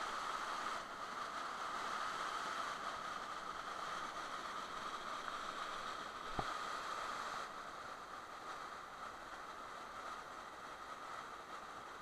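Small forest waterfall and the rocky stream below it rushing steadily, a little quieter in the second half. A single sharp click about six seconds in.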